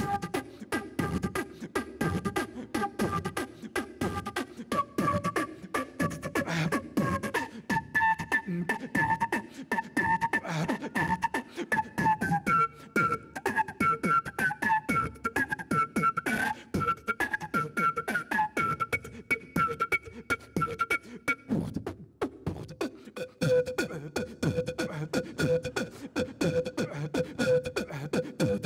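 Flute beatboxing: a fast vocal-percussion beat with a wandering flute-like melody played over it. After a short break near the end, the beat comes back under a steadier held tone.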